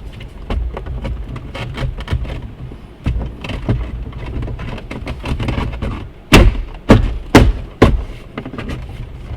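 Hands working a plastic center-console side panel into place: scraping and small knocks, then four loud sharp knocks about half a second apart near the end as the panel is struck to force it on.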